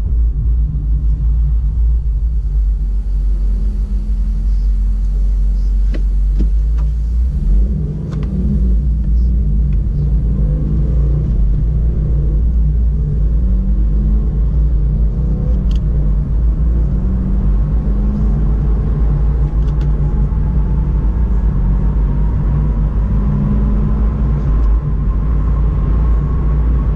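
Inside the cabin of a 2017 Subaru WRX under way: the turbocharged 2.0-litre flat-four and the road make a steady low rumble, with a brief dip about eight seconds in and a faint tone that climbs slowly near the end as the car picks up speed.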